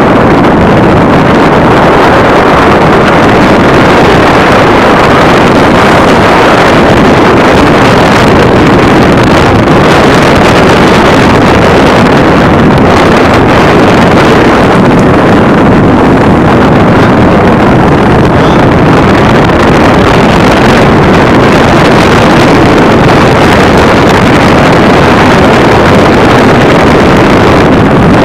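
Loud, steady wind rushing over the microphone, with the running noise of the vehicle carrying the camera underneath, as it moves along a paved road.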